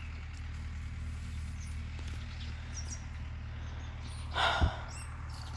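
Outdoor rural ambience: a steady low rumble with a few faint high bird chirps. About four and a half seconds in comes a short breathy burst with a thump, the loudest sound.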